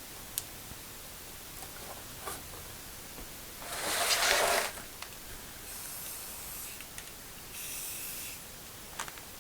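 Aerosol spray paint can hissing in short bursts: one loud burst of about a second roughly four seconds in, then two fainter, thinner bursts a couple of seconds apart, with a few light clicks between.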